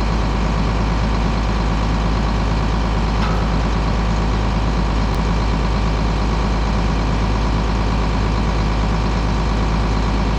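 Tractor diesel engine running at a steady, unchanging speed.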